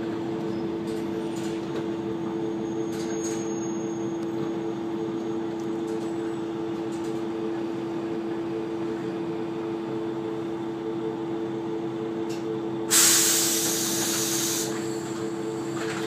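A KiHa 120 diesel railcar's engine idling steadily at a station stop, heard from inside the car. About thirteen seconds in, a loud sudden hiss of compressed air is let out from the railcar's air system and fades within two seconds.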